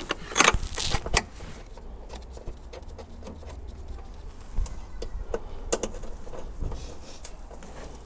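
Scattered clicks and knocks of gloved hands and tools fitting a car battery and its hold-down clamp, over a low steady rumble. The loudest knocks come near the start and again around five to seven seconds in.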